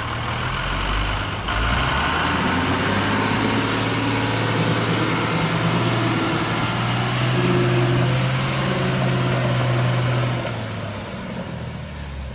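Vehicle engine sound running steadily, with low pitched tones that shift in pitch. It gets louder about a second and a half in and fades down near the end.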